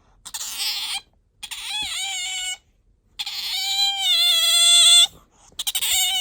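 Asian small-clawed otter squeaking: four high, whining calls with short gaps between them, the second wavering in pitch, the third long and growing louder, and the last a quick run of chirps. This is the call the owner says it makes when sleepy or wanting attention.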